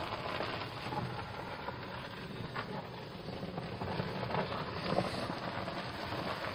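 Golf cart driving along a dirt woodland trail: a steady noise of the ride, with wind buffeting the microphone.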